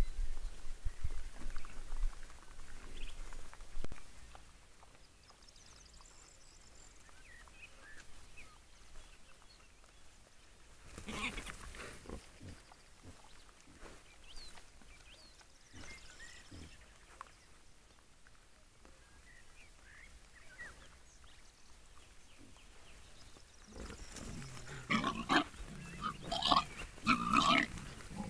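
Wild boar grunting and squealing, loudest and most frequent in a run of calls over the last few seconds, with scattered quieter grunts and rooting sounds before that.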